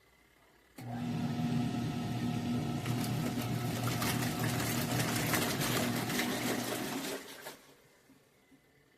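Motor of a compact mini washer and spinner combo starting suddenly about a second in, running steadily with a hum, then stopping near the end.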